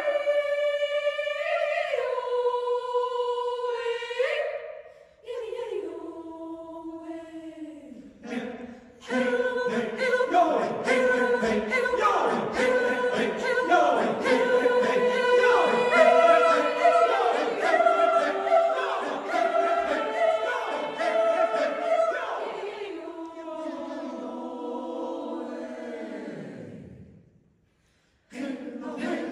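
Choir singing sustained chords in several parts, phrase by phrase with short breaks between phrases. Near the end a low held note slides down and dies away, there is a moment of silence, and the singing starts again.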